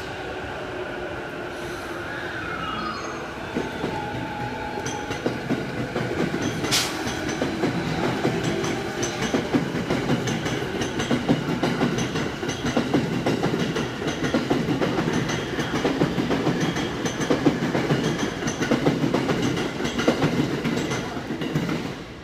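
Tozai Line electric commuter train pulling out. Its motors give a whine that rises in pitch in the first few seconds. Then the cars pass with a rhythmic clatter of wheels over rail joints that grows louder and cuts off sharply as the last car goes by near the end.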